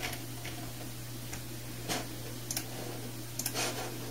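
A few scattered light clicks, with a quick little cluster about three and a half seconds in, over a steady low hum.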